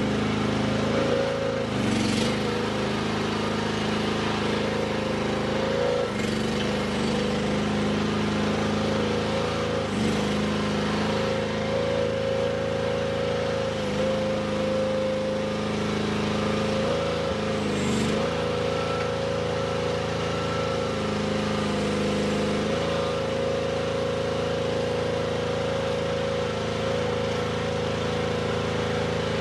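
Mini skid steer's Briggs & Stratton XR 13.5 horsepower petrol engine running steadily at working speed while the machine is driven. The engine note dips briefly about every four seconds, as the hydraulic drive takes load, and then recovers.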